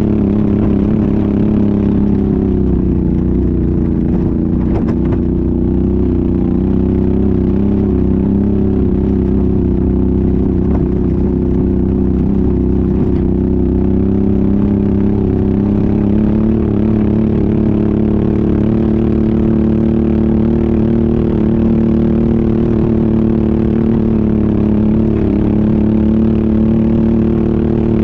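ATV engine running at a steady, moderate speed under load while riding, its pitch holding nearly constant with only slight dips.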